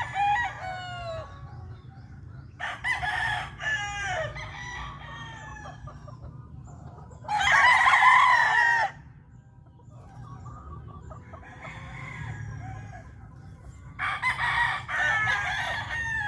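Rooster crowing: one loud, full crow about seven seconds in, with quieter crowing and clucking calls around it.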